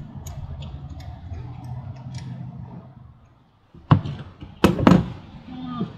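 Light, irregular clicks of a hand tool working the oil drain bolt under a Harley-Davidson Dyna, then three loud sharp knocks about four to five seconds in.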